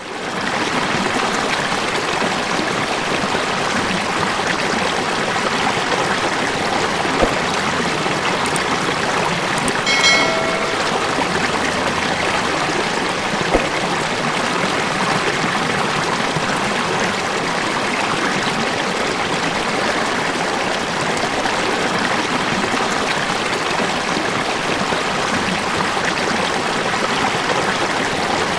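A river running steadily, a continuous rush and babble of water that fades in at the start. About ten seconds in there is a short pitched note, and two faint clicks come before and after it.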